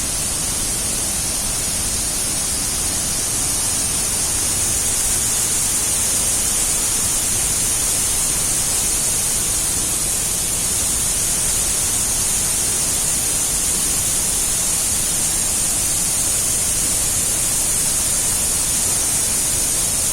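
Waterfall's falling water, a steady loud rushing noise.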